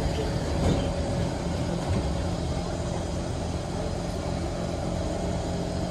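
Steady hum of a stopped Singapore MRT train's onboard equipment while its passenger doors finish sliding open, with a couple of light knocks in the first two seconds.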